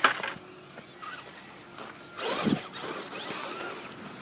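Traxxas Slash RC truck's electric motor whirring up and down in a short burst a little past two seconds in, after a sharp knock at the start.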